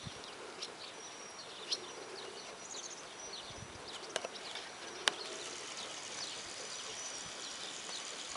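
Outdoor ambience with small birds chirping repeatedly in short high notes, and a few sharp clicks, the loudest about five seconds in.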